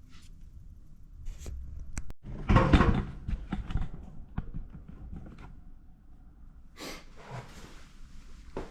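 Tools and parts being handled: scattered clicks, then a loud clatter of knocks about two and a half seconds in, and a soft hiss with a few more clicks near the end.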